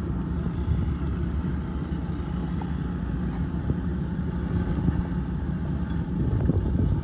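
An engine running steadily with a constant low hum, with no change in speed.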